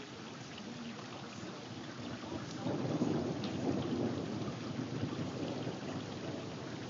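Thunder rumbling over steady rain. The rumble swells in a little over two and a half seconds in, is loudest around three seconds, then slowly dies away.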